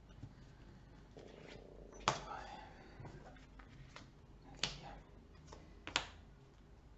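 Three sharp taps about two, four and a half and six seconds in, with a few lighter clicks, over faint room murmur: playing cards being handled and put down on a tabletop.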